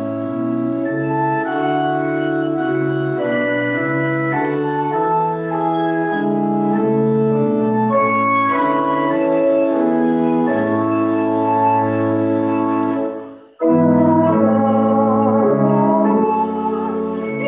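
Church organ playing slow sustained chords that change every second or so. It cuts out briefly about 13 seconds in, then comes back a little louder.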